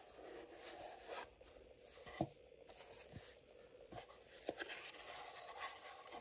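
Faint rustling and scraping of a cardboard watch box handled in cotton gloves as its lid is lifted off, with a few light taps, the sharpest about two seconds in.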